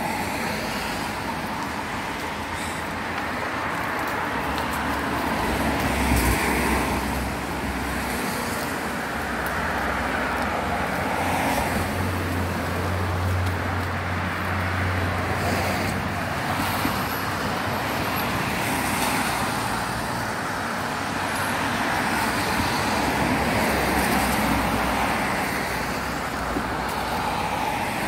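Road traffic passing on a city street: cars and tyre noise swelling and fading one after another, with a deeper low rumble for a few seconds near the middle.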